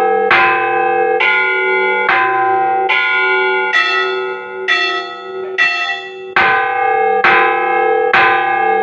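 Church bells ringing, struck about once a second, each stroke ringing on into the next. For several strokes in the middle the pitch shifts higher and the sound dips a little, then the lower bells come back.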